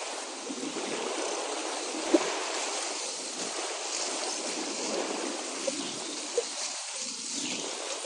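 Shallow river chute rushing and splashing steadily around a drifting inflatable raft, with three short sharp knocks, the loudest about two seconds in.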